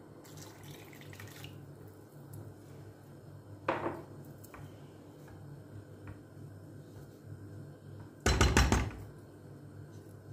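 Chicken broth poured from a glass jug into a pan of bulgur for about a second and a half at the start. A wooden spoon then stirs the pan, with a sharp knock about four seconds in and a louder thump near the end, over a low steady hum.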